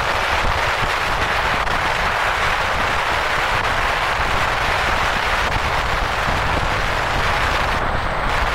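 Steady rushing wind and tyre noise of a car driving along a road, over a low rumble.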